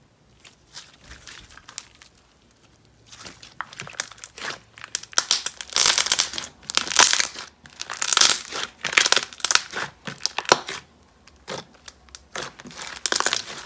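Thick glossy slime being stretched, folded and squeezed by hand, crackling with many small bubble pops. It is faint for the first few seconds, then comes in bursts of crackling from about three seconds in.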